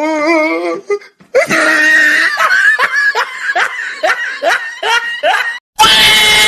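Meme sound clip of a person laughing: a wavering, drawn-out laugh note, then a long run of short laughing bursts, about three a second. Near the end a different loud, noisy clip cuts in abruptly.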